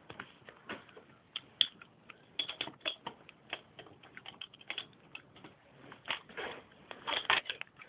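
Small plastic Lego bricks clicking and clattering as they are handled and snapped together, in irregular bunches of light clicks with a denser flurry near the end.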